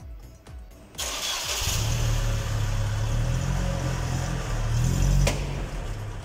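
GAZelle Business van's UMZ-4216 four-cylinder petrol engine cranked by the starter about a second in, catching and running, a little louder as the van is eased forward under load. About five seconds in, a single sharp click: the rear leaf spring settling into its seat.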